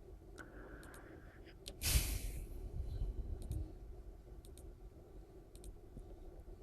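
Computer mouse clicking several times, with a short loud rush of noise about two seconds in.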